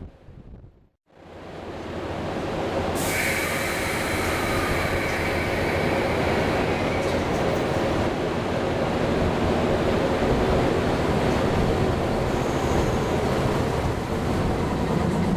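A train running along the track: a dense, steady rumble of wheels on rail with a hiss over it. It cuts out briefly near the start, then swells over the next few seconds and stays loud.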